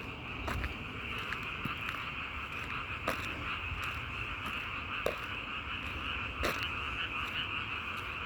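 Chorus of many frogs calling together in a dense, steady din, with a few sharper clicks standing out now and then.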